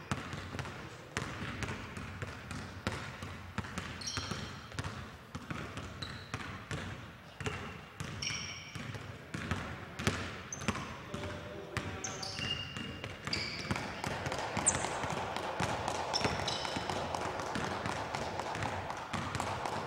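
Basketballs bouncing repeatedly on a gym floor during drills, with short high squeaks scattered between the bounces.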